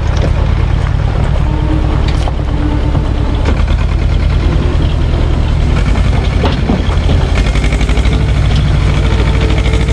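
Same tractor's diesel engine running steadily under load as it tows a trailer heavy with river stones and logs, with a few knocks from the loaded trailer as it rolls over gravel.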